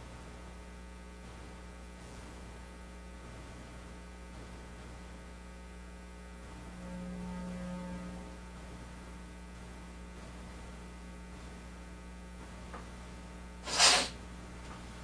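Steady electrical mains hum on an idle audio feed, swelling briefly about halfway through. About a second before the end there is one short, sharp burst of noise, louder than the hum.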